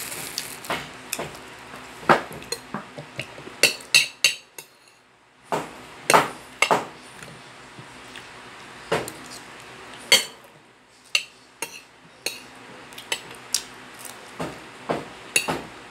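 Spoon and fork clinking and scraping against a plate while eating, in irregular sharp clicks.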